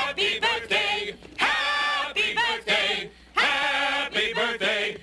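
Several voices singing together in a chant, in short phrases with brief breaks between them.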